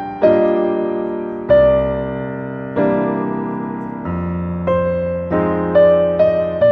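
Background piano music: single notes and chords struck one after another and left to fade.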